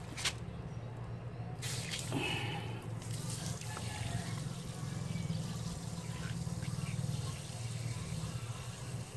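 Water running from a garden hose as it is moved onto a pressure washer's inlet fitting, over a steady low electric hum. A couple of sharp handling clicks come in the first two seconds.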